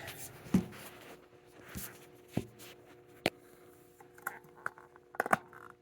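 Scattered sharp clicks and knocks of handling, about half a dozen with two close together near the end, as the camera is set down and the stiff Edwards pull station is worked at by hand, over a faint steady hum.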